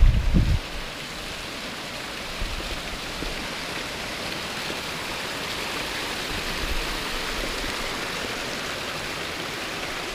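Mountain stream running, a steady rush of water. Wind buffets the microphone in the first half second.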